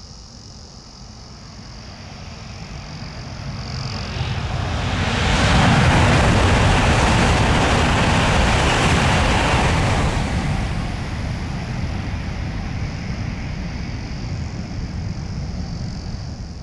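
A passenger train passing, its rumble building over several seconds, loudest for a few seconds in the middle, then easing off. Crickets chirp steadily underneath.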